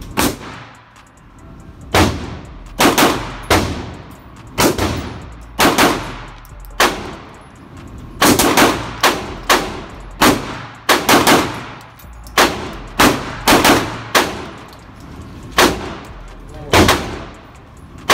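Handgun fired in quick double taps, about two dozen sharp shots, most in pairs a fraction of a second apart with gaps of a second or so between pairs. Each shot has a short echoing tail off the walls of the indoor range.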